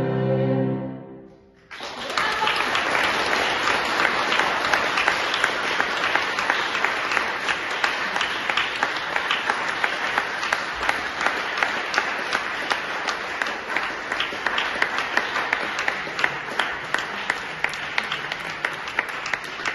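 The final chord of a violin and grand piano dies away, and about two seconds in an audience breaks into steady applause.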